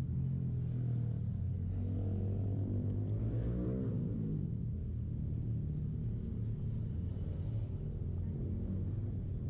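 Street traffic: a vehicle's engine rumbling low and steady, with a pitch that rises from about two seconds in and falls away after about four seconds as a vehicle speeds up and passes.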